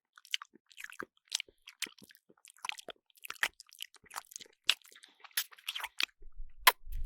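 Cartoon crunching sound effect: a run of irregular, crisp crackles and clicks.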